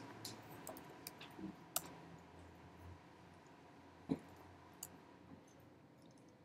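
Faint, scattered clicks of a computer mouse: several in the first two seconds, a sharper one about four seconds in and one more just after, over quiet room tone.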